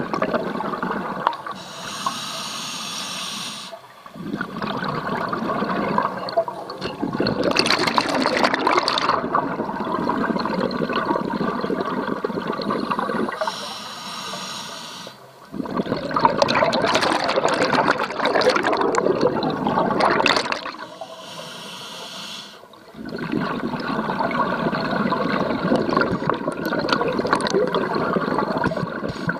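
Scuba diver breathing through a regulator underwater: a short hissing inhalation, then a long rush of bubbling exhaust, repeated three times.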